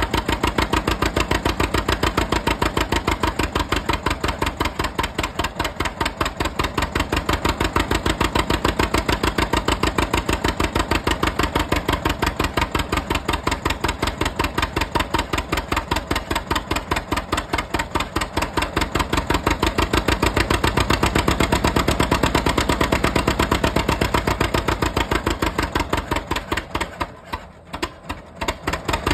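John Deere B's two-cylinder engine running under load on a flat belt, cranking a cold John Deere 730 diesel to start it; a steady, rapid exhaust beat. Near the end the sound drops and breaks up for about two seconds.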